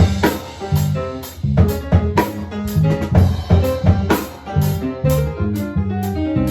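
Live drum kit playing a busy groove of bass drum, snare and rimshots under piano, in an instrumental Latin-style piece.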